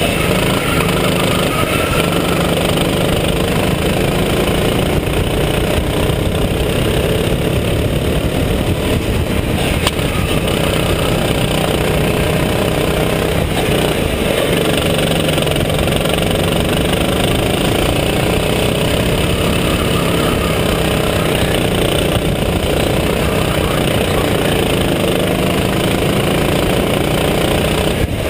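Go-kart engine running hard on track, heard close up from onboard, its pitch rising and falling with the throttle through the corners.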